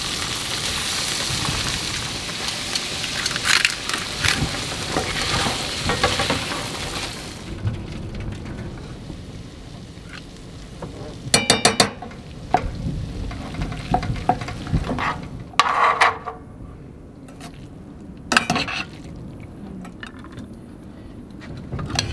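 Peeled yabby tails sizzling in butter in a frying pan for the first several seconds. After that the sizzle drops away and metal utensils clink and scrape against the pans, with a quick run of clinks about halfway through.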